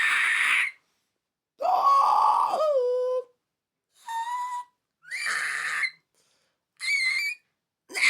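A man's fry screams: a series of short, high-pitched screams one after another, separated by brief silences, about five new ones after a first one tails off, one dropping in pitch at its end.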